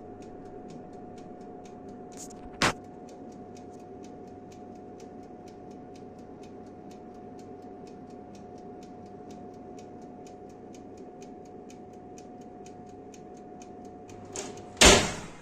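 Electric oven running while the cake bakes: a steady fan hum with a held whine, and a regular ticking of about four ticks a second. A sharp click comes a little under three seconds in, and a loud knock near the end.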